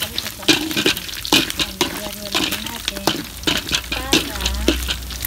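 Pork pieces frying in oil in an aluminium wok, sizzling, while a metal spoon stirs and scrapes them around the pan in repeated strokes, roughly two a second. The pork, boiled beforehand, is being fried until browned.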